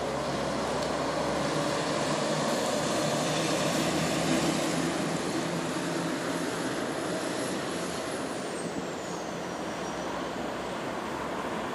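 Road traffic noise: a broad rumble that swells to a peak about four seconds in and then eases off, with a faint high whine that drops in pitch near the end.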